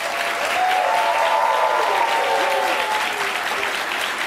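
Studio audience applauding steadily, with a voice laughing over it during the first few seconds.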